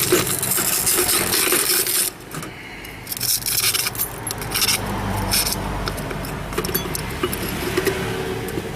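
Small hard objects clicking and clinking, with some scraping, many short clicks over several seconds.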